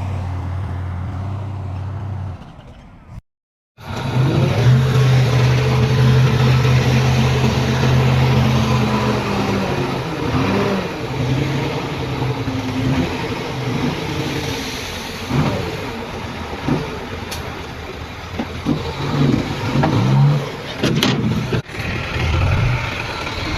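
Diesel engines of heavy earthmoving machinery running, their pitch rising and falling as they work. The sound drops out to silence for about half a second around three seconds in, at a cut in the recording.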